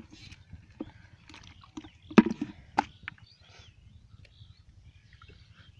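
Splashing and sloshing of hands working through shallow muddy water while catching fish, with scattered small knocks and splashes. The loudest is a sharp splash or knock about two seconds in, followed by another just under a second later.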